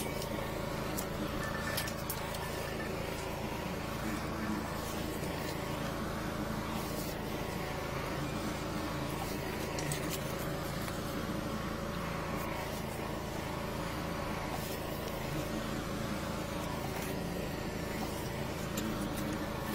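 High-pressure sewer jetter's engine and pump running at a steady pitch, with a few faint clicks over the top.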